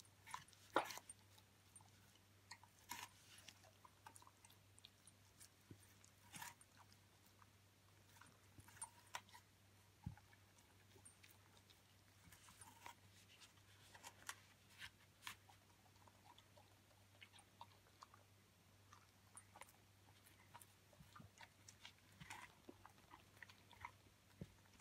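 A young Hamiltonstövare dog biting into and chewing a whole apple, with irregular crunches scattered throughout; the loudest comes about a second in.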